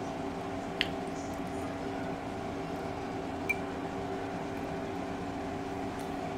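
Steady mechanical hum holding several pitches, with two light clicks of a metal spoon against a glass bowl, about a second in and again past the middle; the second has a short ring.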